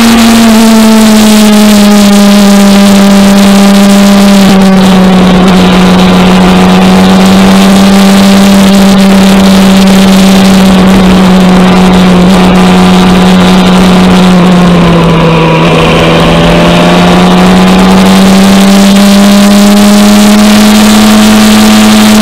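Motorcycle engine running at a steady cruising speed, heard loudly from on the bike, with road and wind noise under it. The engine note drops a little about fifteen seconds in as the rider eases off, then climbs back up.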